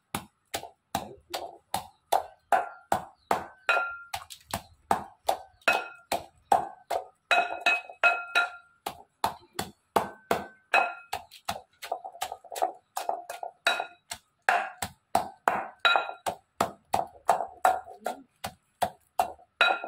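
A pestle pounding crabs in a small white ceramic mortar, about two to three strikes a second. Each strike is a clink with a short ringing tone.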